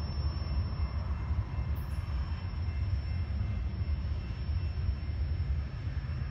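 Freight train's cars rolling along the track, a steady low rumble of wheels on rail as the rear of the train moves away.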